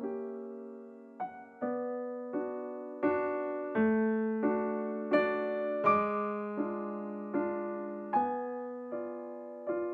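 Background music: a slow, gentle piano piece, notes and chords struck about every three-quarters of a second and left to ring and fade.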